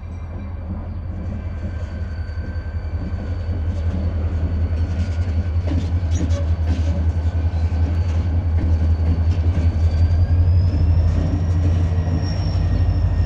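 A single diesel locomotive running light, its engine giving a deep steady drone that grows louder as it approaches. A thin high whine runs above the drone.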